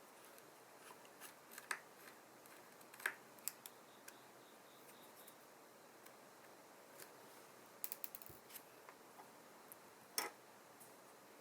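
Scattered small clicks and taps of tools and small parts being handled during an iPhone 7 battery replacement, over a faint steady hiss; a cluster of quick clicks comes about eight seconds in.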